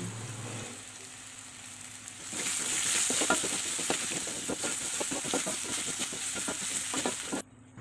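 Spice paste sizzling in hot oil in a wok while a wooden spatula stirs it: a steady frying hiss that grows louder about two seconds in, with quick scrapes and taps of the spatula against the pan, stopping abruptly near the end.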